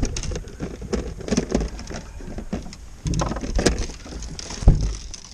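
Irregular knocks and rattles aboard a bass boat, the loudest a little before the end, over wind rumbling on the microphone.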